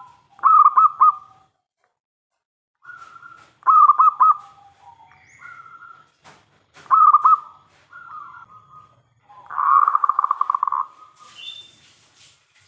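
Zebra dove (perkutut) cooing: three loud phrases of quick staccato coo notes near 1 kHz, about three seconds apart, each followed by softer lower notes, then a longer, rapid trilled coo about ten seconds in. A brief hiss follows near the end.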